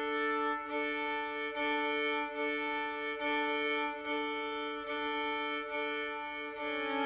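Background music: a bowed violin playing slow, sustained notes in even repeated strokes, a little under one a second.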